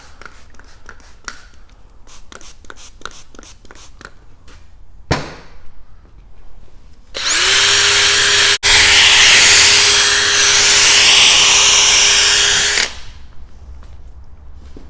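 Cordless drill spinning a 3000-grit wet-sanding disc on a plastic headlight lens. It spins up about seven seconds in, runs steadily for about six seconds with a momentary dropout, then stops. Before it come a string of light quick clicks and a single knock.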